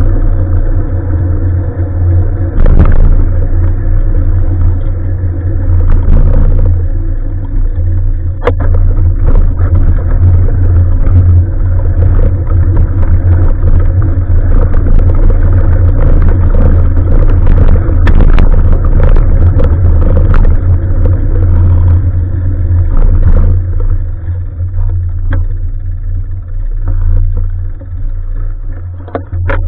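Wind buffeting an action camera's microphone during a bike ride: a loud, steady low rumble, with a few sharp knocks and rattles from the ride.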